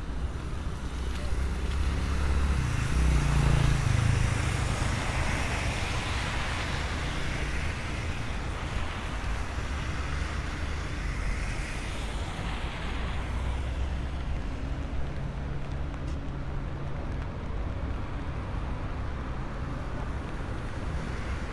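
City road traffic on wet streets: a steady low rumble of engines and tyre hiss, with a vehicle passing and swelling louder about three seconds in before the sound settles back.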